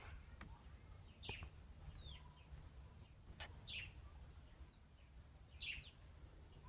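Small birds chirping faintly, with a handful of short chirps that fall in pitch, a second or two apart.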